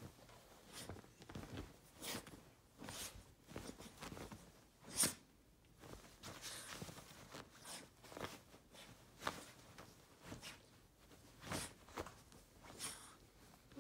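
Bedding rustling and scuffing as a wet Havanese puppy wriggles and burrows in the blankets to rub itself dry. It comes as irregular, short, faint rustles, with the sharpest scrape about five seconds in.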